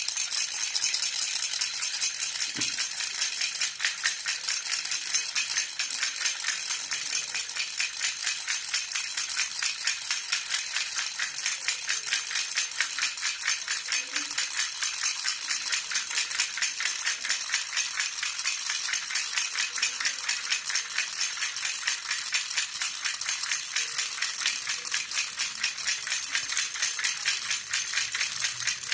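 Silver jhunjhuna baby rattle shaken steadily, its metal pieces rattling and jingling in a fast, even rhythm without pause.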